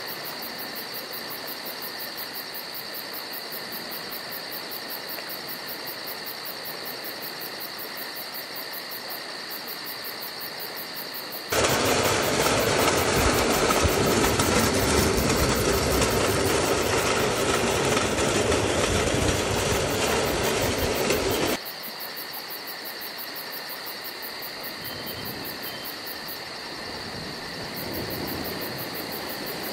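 Pedal-powered rail bike rolling along old steel rails: a loud, dense rumble and rattle of the wheels on the track for about ten seconds in the middle. Before and after it there is a quieter steady hum with a thin high whine.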